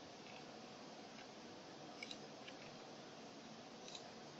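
Near silence: faint room hiss with a few soft, sharp clicks of a computer mouse as folders are picked in a file dialog.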